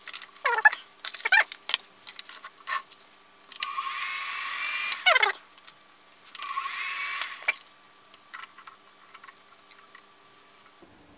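Clicks, taps and light rattles of film being threaded by hand through the sprockets and gate of a 1953 Bolex M8 8mm film projector. Two short bursts of a steady whirring noise come about four and seven seconds in.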